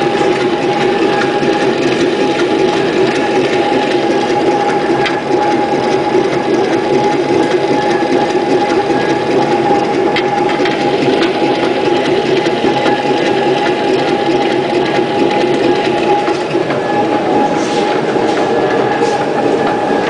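The traction motor of a 1926 Whitcomb 4-ton storage battery locomotive, a brushed DC motor, running steadily with its gear drive. It makes a steady high whine over a dense mechanical clatter.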